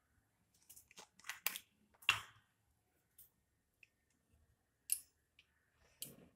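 Faint, scattered clicks and short scrapes of an acrylic paint tube and a metal palette knife being handled, with the loudest clicks at about two seconds and about five seconds in.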